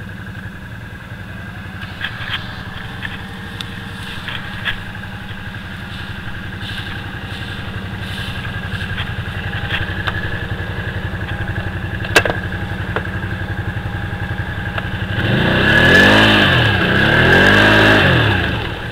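ATV engine idling steadily with a few sharp clanks, then revved twice near the end, the pitch rising and falling each time, as the quad tries to pull out of deep mud.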